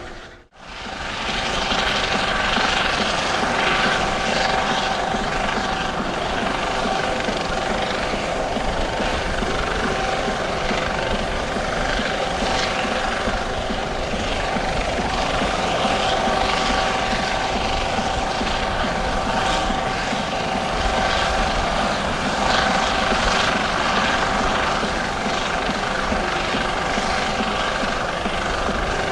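U.S. Coast Guard MH-65D Dolphin helicopter running steadily overhead: a continuous rotor and turbine noise with a steady high whine through it. The sound cuts out for a moment just after the start.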